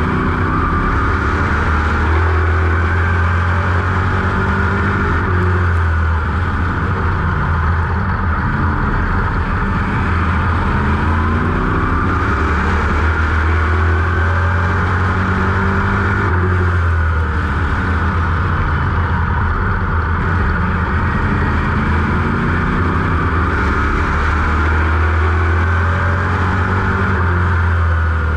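Dirt modified race car's GM 602 crate V8 at racing speed, heard from inside the open cockpit: a loud, steady rumble whose pitch rises and falls as the driver goes on and off the throttle through the turns.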